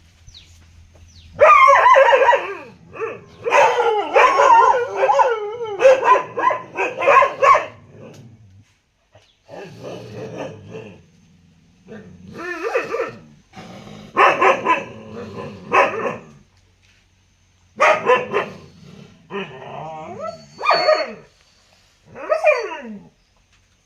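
A dog barking in rapid volleys, densest for the first several seconds, then in shorter bursts with pauses between.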